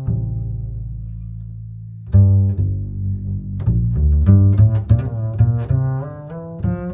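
Background music: a long low note that fades over about two seconds, then a quick run of short low notes.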